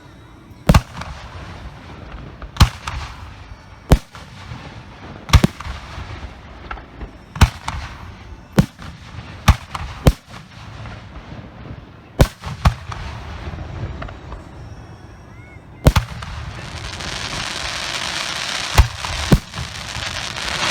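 Professional aerial firework shells bursting in the sky, with sharp booms every one to two seconds. About three-quarters of the way in, a dense crackle effect builds and fills the air with sizzling pops.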